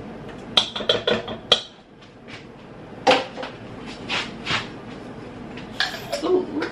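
Kitchen clatter as minced garlic is scraped out of a glass jar into a non-stick pot: a series of sharp clinks and taps in small clusters, then the jar knocked down on the worktop.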